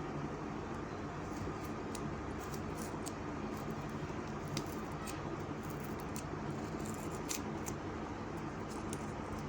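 Light clicks and crinkles of a plastic toy capsule and its wrapping being handled and opened, scattered over a steady low hum.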